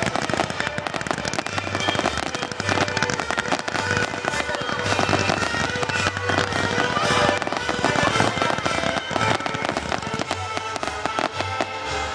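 Fireworks going off in rapid succession, a dense crackling with repeated low booms, while music plays.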